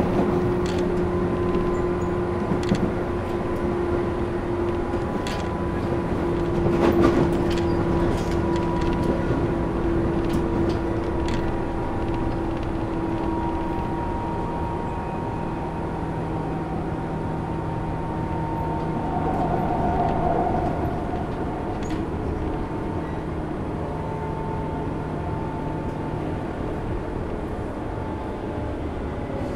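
Tobu 10000-series electric train heard from inside a motor car running along the line: a steady hum from the traction motors and gearing over the rumble of wheels on rails. A few sharp clicks come in the first dozen seconds.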